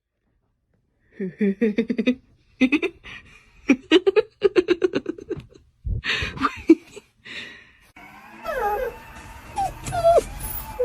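Dog whining in short rising and falling whimpers over the last few seconds, after several stretches of rapid, stuttering pitched sound earlier on.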